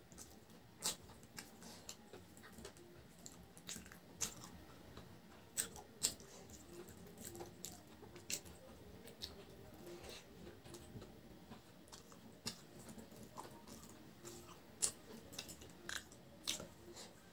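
Close-up eating sounds: a person chewing rice and curry eaten by hand, with many sharp, irregular wet mouth clicks and smacks.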